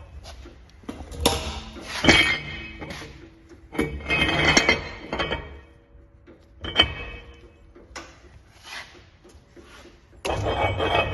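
Metal clanks and clinks, several separate knocks each followed by a brief metallic ring, like metal parts being handled or knocked together. About ten seconds in, a loud steady sound with several held tones starts abruptly and keeps going.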